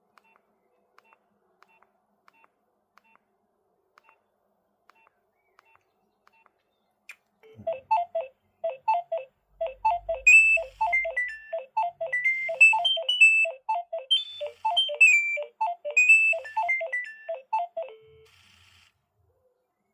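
Phone ringtone melody playing: a quick low figure repeating about twice a second under a higher tune. It comes in about seven seconds in, after faint regular ticking, and stops shortly before the end.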